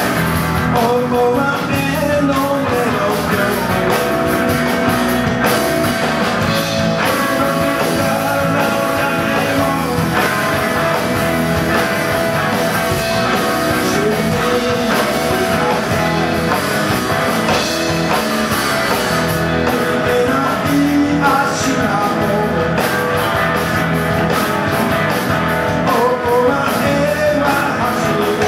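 Live rock band playing: a man sings over his Firebird-style electric guitar, backed by drums and a second guitar.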